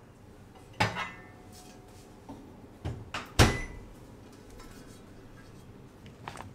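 Kitchen handling noises: a few sharp knocks and clacks of things being picked up and set down on a countertop, the loudest about three and a half seconds in with a brief ring.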